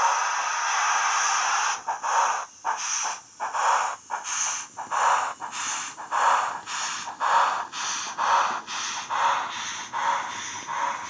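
Model steam locomotive sound from a LokSound 5 micro decoder through a small sugarcube speaker in a Bachmann/Model Rail USA tank: a steady steam hiss, then a little under two seconds in the exhaust chuffs start, about two a second, as the loco pulls away, fading slightly near the end.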